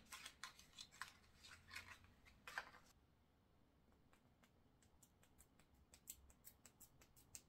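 Faint clicks and light handling noises from a small perfume sample vial and a paper scent strip being handled: a few soft clicks at first, then a run of faint quick ticks near the end.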